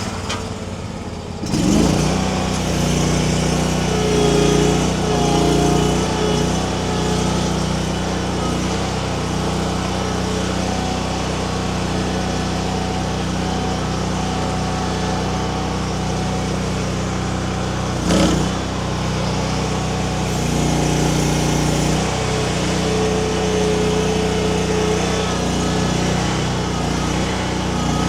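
Mini skid steer's small engine running steadily just after starting, its sound swelling a few times as it takes load, with one sharp knock about 18 seconds in.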